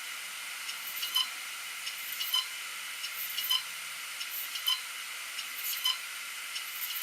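Opened Seagate Barracuda Green hard drive with its platters spinning at a steady hiss and whine, and a short, sharp chirp-click about once every 1.2 seconds as the read/write head sweeps over the platter. This is a failed drive that can no longer be recognised: the platters are deeply scratched, which is taken as the cause of the failure.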